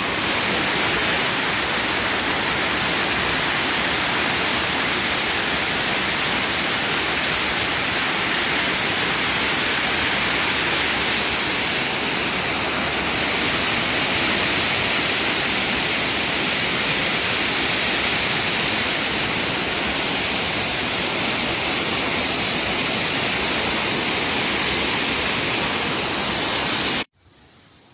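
Flash-flood water rushing in a steady, loud, unbroken torrent, which cuts off suddenly about a second before the end.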